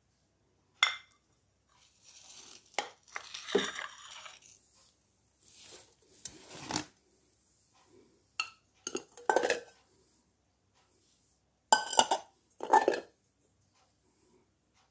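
Bowls and plates, crockery and enamelware, being handled and set down on a hard surface: a series of separate clinks and short clatters, some ringing briefly, with sliding and rubbing between. The sharpest clinks come about a second in and near twelve seconds in.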